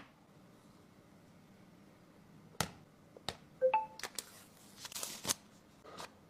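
Unboxing handling noises from a tablet's packaging: a few sharp clicks and taps, a brief squeak, and a stretch of rustling and sliding about two seconds in.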